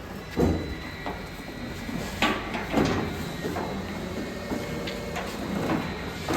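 Irregular knocks and thuds, about half a dozen, over a steady machine hum.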